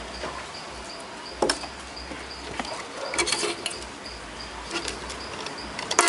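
Clicks and knocks of an amplifier's circuit board and wiring being handled and shifted, with one about a second and a half in, a cluster around three seconds in, and the loudest at the very end. Behind them a faint high chirp pulses steadily, about three times a second.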